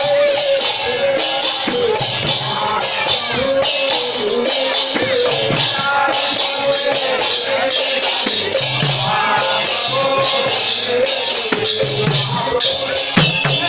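Odia nama sankirtan music: small hand cymbals clashing in a fast, steady rhythm over a drum, with a wavering melody line carried above them.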